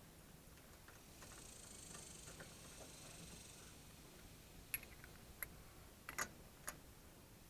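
Lug nuts being started by hand on the wheel studs: a handful of sharp metallic clicks over the last three seconds against near silence.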